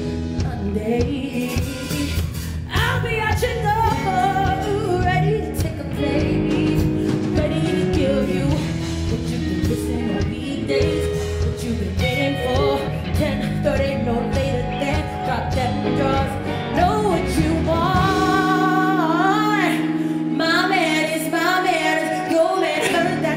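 Live band playing an R&B cover song: a woman sings the lead melody over keyboard, electric guitar, bass and drums. About eighteen seconds in the bass drops out, leaving the voice over held chords, and it comes back right at the end.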